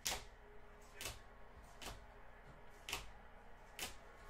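Five sharp taps about a second apart: trading cards being set down on a table one after another.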